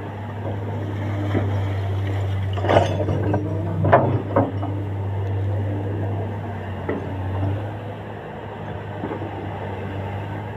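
Komatsu hydraulic excavator's diesel engine running steadily, with a few sharp metallic clanks a little under three seconds in and again around four and seven seconds. The engine note drops about three-quarters of the way through.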